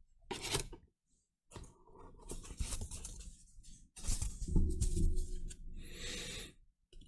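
Cardboard box and a foam packing sheet being handled: scraping and rustling in several stretches, with a few knocks, as the foam is lifted out of the box.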